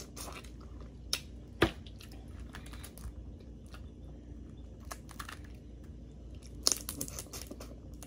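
Boiled crawfish being peeled and eaten close to the microphone: shells cracking and snapping in scattered sharp clicks, with chewing. The loudest crack comes about a second and a half in, and a quick run of cracks comes near the end.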